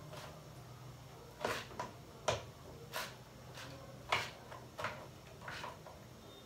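A series of about eight light, irregular knocks and clicks: a cooking utensil striking the side of a plastic bowl as chicken pieces are stirred and tossed.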